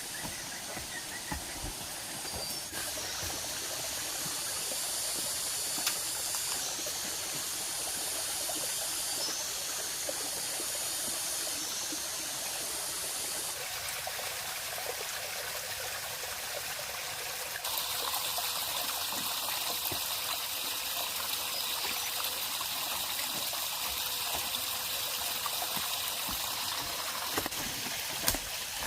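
Steady trickling, running water, with a few small crackles; the noise shifts abruptly several times.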